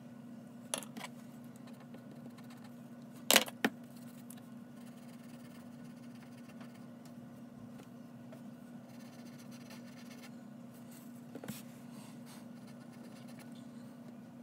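Graphite pencil drawing on paper: faint scratching strokes over a steady low hum. A sharp double knock comes a little over three seconds in, with smaller clicks about a second in and near eleven and a half seconds.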